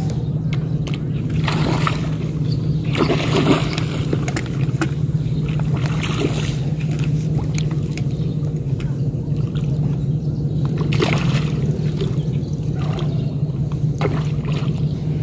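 Small boat engine running with a steady low hum. A few short bursts of water sloshing and splashing break in along the way.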